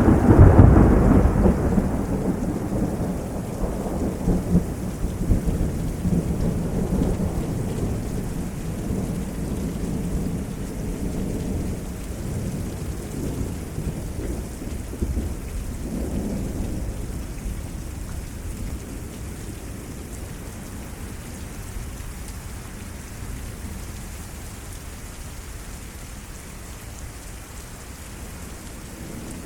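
Thunder from nearby lightning: a loud, deep rumble at the start that rolls on and slowly fades over about twenty seconds, with a weaker rumble about sixteen seconds in. Steady rain of a severe thunderstorm runs underneath.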